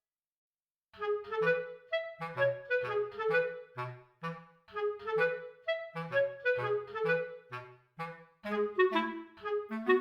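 Background music: after a silent first second, a light melody of short, detached notes plays in a steady rhythm.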